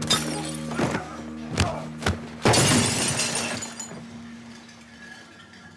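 Fight blows landing, several sharp hits spaced under a second apart, then a crash of breaking glass about two and a half seconds in that shatters and dies away. A low droning music score runs underneath and fades near the end.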